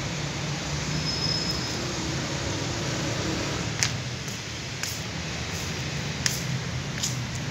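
Steady low background hum with a noisy hiss, and four short sharp clicks in the second half.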